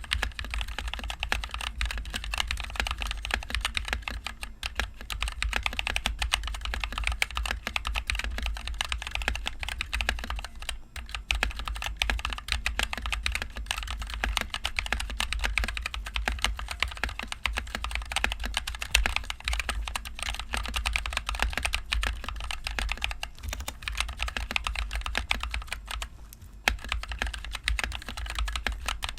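Fast, continuous typing on a NovelKeys NK65 mechanical keyboard with NovelKeys Cream linear switches and HyperX Pudding keycaps: a dense stream of key clacks with brief pauses about eleven seconds in and near the end.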